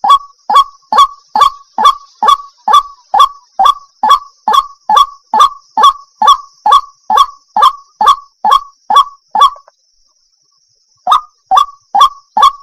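A water hen calling: a fast, even series of short honking calls, about two to three a second, that pauses for about a second and a half near the end and then starts again.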